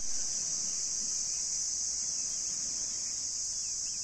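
Insect chorus: a steady, high-pitched buzz that starts abruptly and holds at an even level, with a few faint bird chirps near the end.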